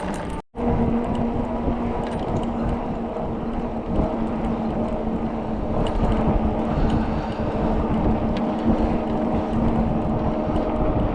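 A vehicle moving at a steady speed: a steady engine hum under rushing road and wind noise, cut by a brief dropout just after the start.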